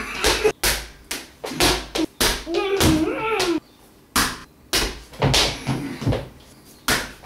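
A series of sharp, irregular thuds, a few a second, with a short stretch of a child's voice with a wavering pitch near the middle.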